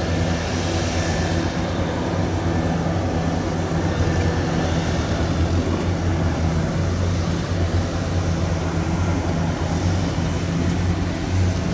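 Engine of a small tracked rice-hauling tractor, loaded with sacks of rice, running steadily as it drives across the harvested paddy.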